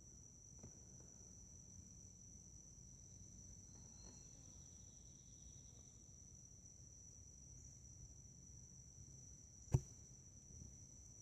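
Near silence but for a faint, steady, high-pitched insect chorus, with one short sharp click near the end.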